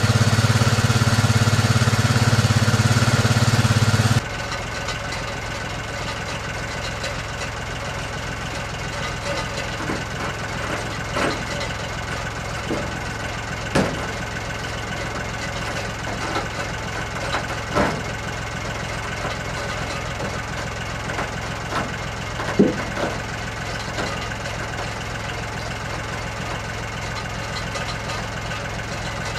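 John Deere compact tractor engine idling steadily. It runs louder for the first four seconds, then drops abruptly to a quieter idle. Scattered light metallic knocks and clanks come from the boat trailer as it is pushed into place by hand.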